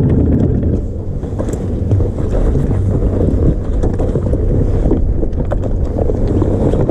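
Boat motor running at idle under heavy wind buffeting on the microphone: a steady low rumble with light knocks now and then.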